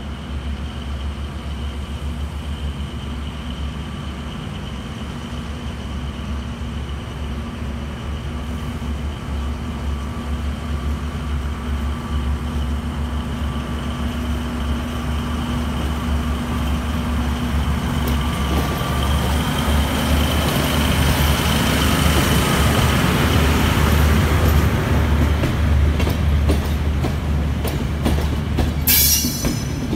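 Diesel locomotive running under load as it draws a passenger train towards and past the listener, its engine hum growing steadily louder. Near the end the coaches roll by close, with rhythmic clicking of wheels over rail joints and a short high-pitched wheel squeal.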